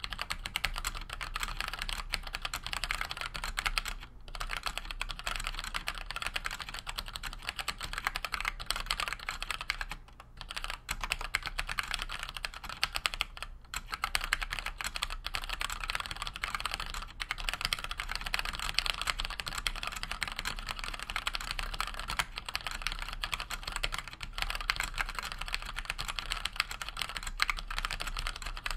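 Typing on a Cherry G80-1800 mechanical keyboard fitted with 55 g Gateron Black linear switches and GMK keycaps: a fast, steady clatter of keystrokes broken by a few brief pauses.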